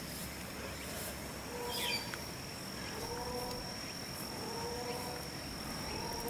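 Outdoor insect and bird ambience: a steady high-pitched insect drone, one short falling bird call about two seconds in, and short low-pitched calls repeating about every second and a half.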